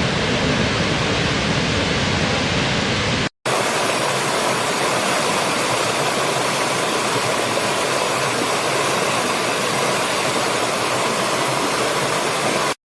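Waterfall rushing steadily. There is a brief gap about three seconds in, after which the sound has less bass, and it cuts off suddenly near the end.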